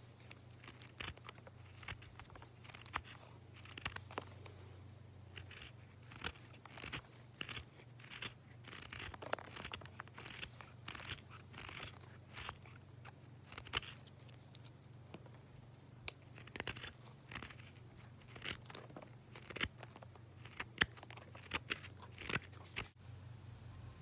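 A knife blade shaving a hardwood block by hand: a quick, irregular string of short, crisp scraping cuts, often several a second, as curls of wood come off.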